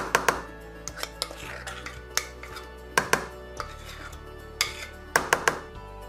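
A metal spoon knocking and scraping against a glass mixing bowl while thick cake batter is scraped out into a loaf tin: about a dozen sharp clinks in irregular bunches, the loudest at the start and about five seconds in. Background music plays throughout.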